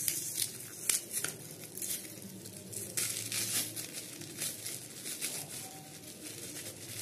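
Clear plastic packaging wrap crinkling and tearing as it is pulled off a small electronic unit by hand, in short irregular crinkles.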